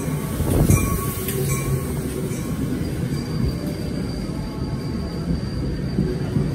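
NJ Transit commuter train cars rolling past close by along the platform: a steady rumble of steel wheels on rail, with a few sharp clicks about a second in and a faint high-pitched wheel squeal through the middle.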